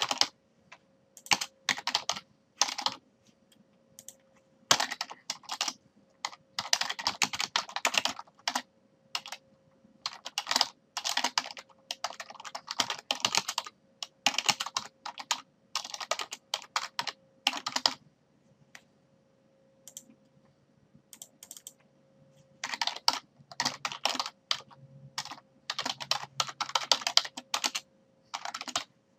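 Typing on a computer keyboard: runs of quick key clicks broken by short pauses, over a faint steady hum.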